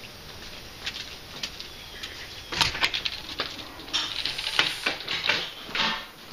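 Door latches and handles clicking and rattling as an outer storm door and then the front door with a brass lever handle are opened: a few sharp clicks about two and a half seconds in, then a busier run of clicks and rattles from about four seconds in.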